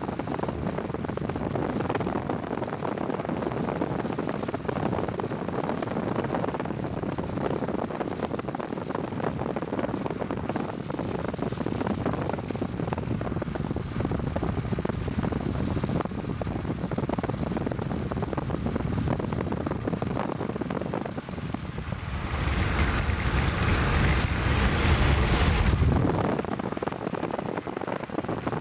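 Steady road and wind noise of a car driving. About 22 seconds in, a louder rushing noise swells for some four seconds, then drops back.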